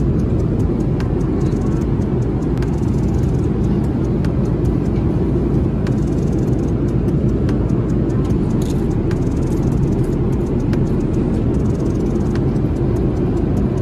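Steady low drone of a jet airliner heard inside the passenger cabin: engine and airflow noise at a constant level.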